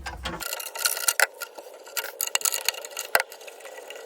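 Grips clicking and tapping on small metal nuts as they are undone: irregular sharp clicks and knocks, the loudest about a second in and again about three seconds in.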